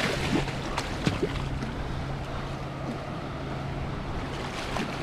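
Hooked nurse shark splashing at the surface beside a boat, a few sharp splashes in the first second or so. Steady wind and water noise with a low steady hum underneath.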